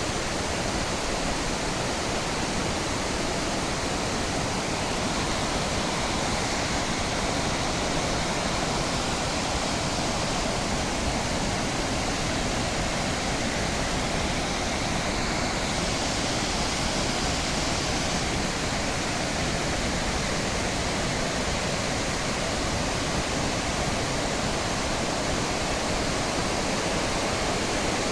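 Fukiware Falls, a broad waterfall on the Katashina River, rushing steadily in an even, unbroken wash of falling water. For a few seconds around the middle the hiss grows slightly brighter.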